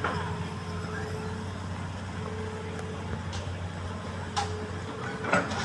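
Diesel engine of an excavator running steadily, with a faint steady whine over the drone. There is a sharp knock about four seconds in and some rougher noise near the end.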